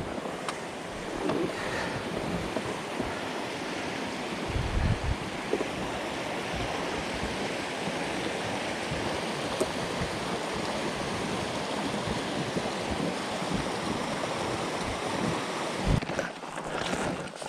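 Steady wind rushing over the microphone, with a couple of low thumps about five seconds in and near the end.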